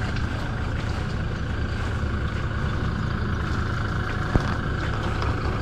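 Toyota Hilux ute engine idling steadily while hitched to a boat trailer, with one sharp click about four and a half seconds in.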